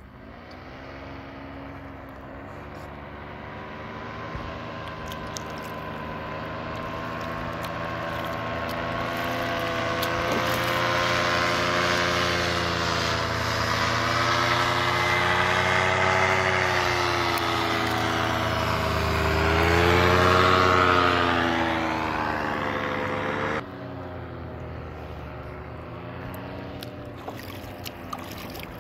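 Powered paraglider's engine and propeller droning as it flies low overhead, growing louder over about twenty seconds with its pitch wavering up and down. It is loudest about twenty seconds in, then drops suddenly to a quieter drone.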